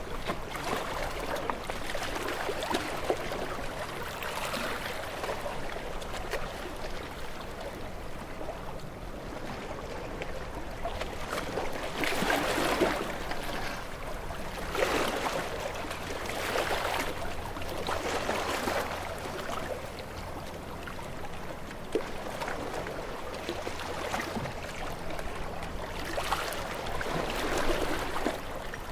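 Ocean waves washing and splashing against rocks: a continuous wash of water with repeated surges, a run of them about two seconds apart midway.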